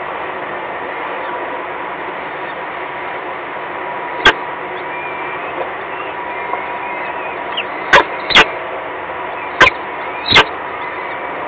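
Steady hiss from an outdoor webcam's microphone with a constant high hum, broken by sharp, loud clicks: one about four seconds in, then four more close together in the last few seconds.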